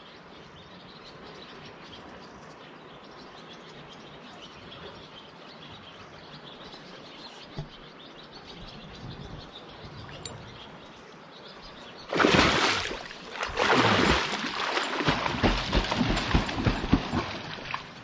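Steady outdoor river background with faint bird chirps. About two-thirds of the way in, loud, uneven splashing of water close to the microphone starts and runs to the end.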